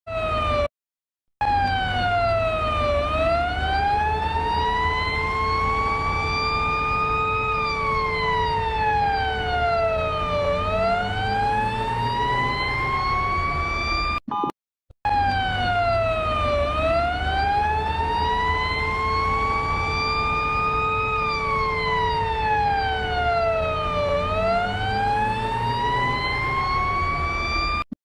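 Alternate-version Russian emergency alert system alarm: a wailing siren tone that slowly falls and rises in pitch, each glide lasting three to four seconds, over a steady tone and a low rumble. It cuts out briefly near the start and again about halfway, then takes up the same wail again.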